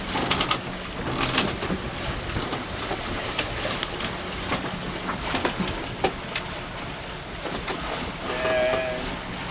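Wind and water rushing around a sailboat under way, with scattered knocks and creaks from the boat and a steady low hum underneath.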